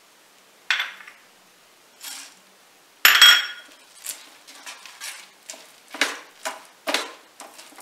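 Metal slotted spoon knocking and scraping in a steel frying pan as roasted peanuts are stirred into melted sugar syrup. There are a couple of separate knocks, a loud ringing clank about three seconds in, then quick repeated strokes about two a second.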